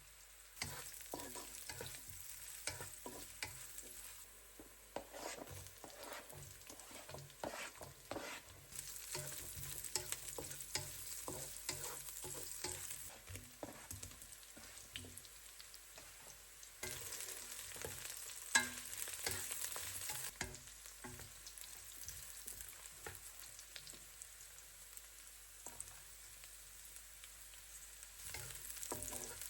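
Food sizzling in a pan while a utensil stirs it, with frequent light clicks and knocks against the pan. The sizzle swells and fades at times, and there is one sharper knock about two-thirds of the way through.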